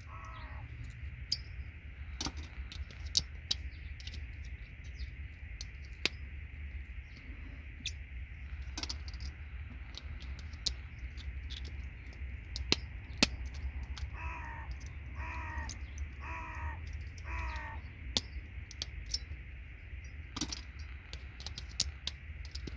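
Small sharp clicks and snaps of plastic and metal as the plastic housings are pried and pulled off RJ45 connector pins, over a steady low hum. About two-thirds of the way in, a bird calls four times in a row, about a second apart.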